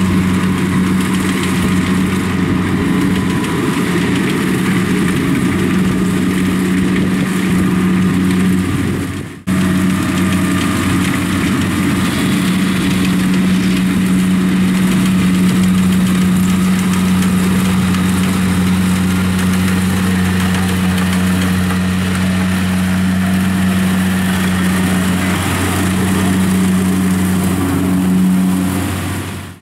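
Kubota DC70 rice combine harvester running steadily under load as it cuts and threshes rice, a steady low drone from its diesel engine and machinery. The sound drops out for an instant about nine seconds in.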